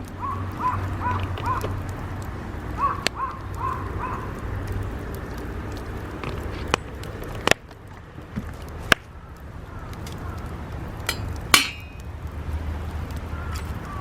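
Sharp cracks and knocks from burning or handled firewood, about six of them spread out, one near the end ringing briefly, over a low steady rumble. Birds call in the first few seconds.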